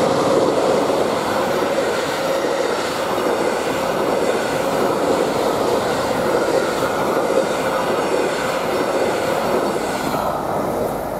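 Electric intercity train, a locomotive hauling double-deck passenger coaches, passing close by: a steady rumble and rush of wheels on rail with a humming tone, easing off about ten seconds in as the last coach goes by.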